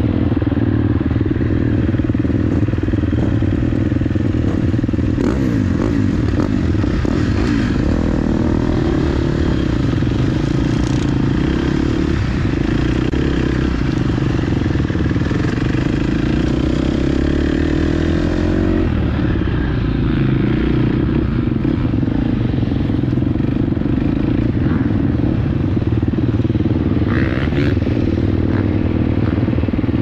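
KTM SX-F motocross bike's four-stroke single-cylinder engine running close up, its revs rising and falling as it is ridden slowly over dirt, with the pitch climbing a few times as the throttle opens.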